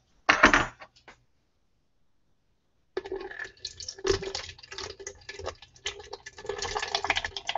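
A short clatter, then about two seconds of silence, then water running from a kitchen tap, splashing and crackling steadily.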